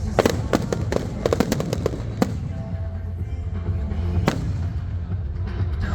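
Fireworks bursting in a quick run of sharp bangs and crackles over the first two seconds, then a single bang about four seconds in, over a steady low rumble.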